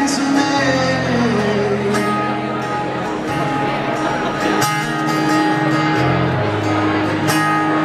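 Acoustic guitar played live, with chords strummed and ringing on. A man's voice sings over it, sliding down in pitch near the start.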